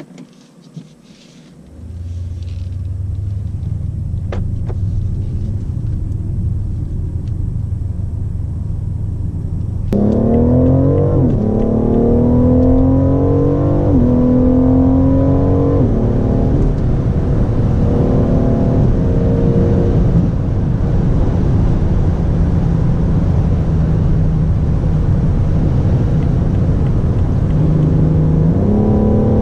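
BMW M760Li's 6.6-litre twin-turbo V12 pulling hard under full acceleration: the engine note climbs and drops back at each automatic upshift, three or four times in a row, then settles into a steady drone before rising sharply again near the end. Before that, a few light clicks and then the low steady drone of the car rolling along.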